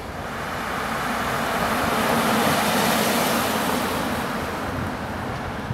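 A car driving past: a rush of road noise that swells to its loudest about halfway through, then fades away.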